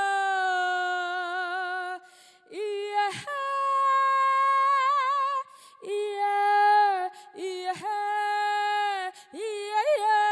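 A solo female voice singing unaccompanied: long held notes with a wavering vibrato and sliding swoops between them, broken by short pauses about two seconds in and again a little past halfway.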